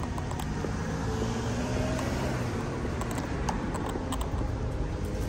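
Steady noise of road traffic and cars in an outdoor car park, with a few light clicks in the second half.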